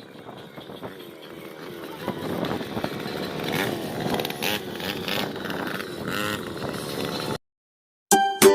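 Gasoline ATV engine running and growing louder, its pitch wavering up and down as it revs. It cuts off abruptly near the end, and plucked ukulele-like music starts.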